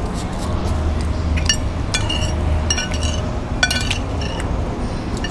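Metal spoon clinking against a plate several times while eating, over a steady low background hum.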